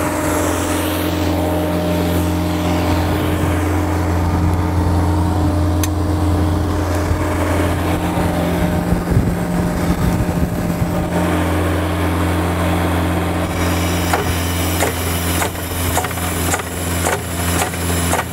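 Diesel Kubota engine of a truck-mounted sealcoating unit running steadily at raised RPM, driving the air compressor, while the material pump cycles to charge the system through the open recirculation valve. The engine's note shifts a few times, and faint ticking comes in near the end.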